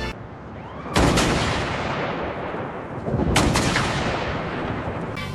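Two loud action-film blast sound effects about two seconds apart, each cutting in sharply and fading out in a long decay, after a second of low rumble.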